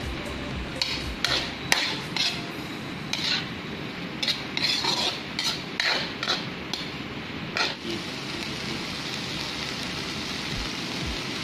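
A spatula scraping and knocking against a wok as pork pieces with soy sauce are stir-fried, over a frying sizzle. The strokes stop about eight seconds in, leaving a steady sizzle.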